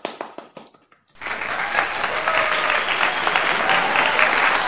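A few sharp hand claps. About a second in, a loud recorded crowd-applause sound effect starts abruptly and carries on steadily.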